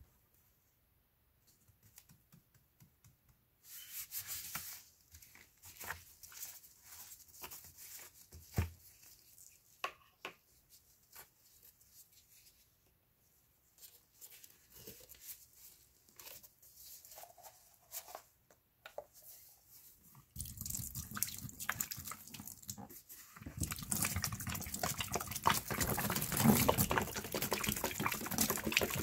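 Gloved hands handle a plastic jug of pine cleaner and work its cap and foil seal loose, making scattered small clicks, crinkles and rustles. About twenty seconds in, the cleaner starts pouring in a steady stream onto sponges in a plastic tray. It stops briefly, then pours again more loudly.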